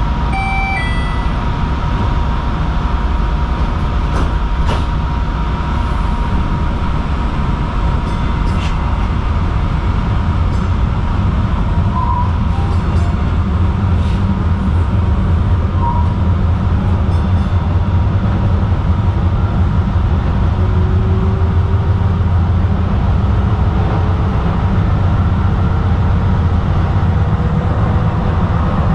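2010 Kinki Sharyo light rail car running along the track, heard from on board: a steady low rumble of wheels on rail, with a faint whine slowly rising in pitch over the last several seconds.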